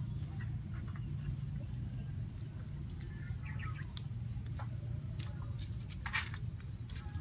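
Small twig fire crackling, with scattered sharp pops, strongest about four and six seconds in, over a steady low hum. A few short bird calls come about three to four seconds in.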